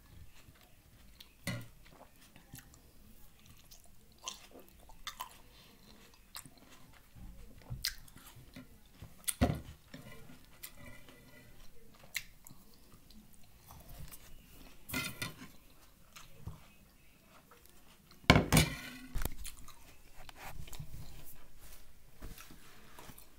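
Close chewing and biting of green grapes coated in Argo cornstarch, with scattered crunches and mouth clicks; a few louder bursts stand out about a third of the way in, past the middle and near the end.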